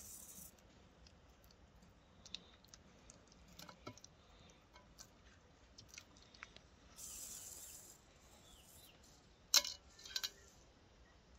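Faint handling noises: scattered small clicks and rustles of hands working string around stuffed fish in a metal pot. There is a brief hiss about seven seconds in and a sharper click a couple of seconds later.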